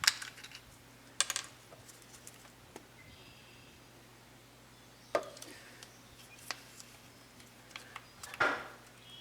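Handling sounds: a handful of scattered light clicks and knocks of small hard objects being moved and set down, with a slightly longer scrape near the end, over a faint steady hum.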